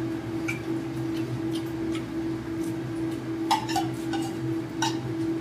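A few light clinks of plates and serving spoons on the table during a meal, over a steady low hum.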